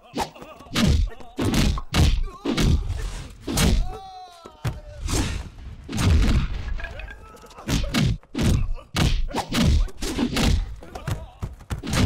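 Film fight sound effects: a rapid run of heavy punch and kick impacts landing every half second or so, with a short pained cry about four seconds in.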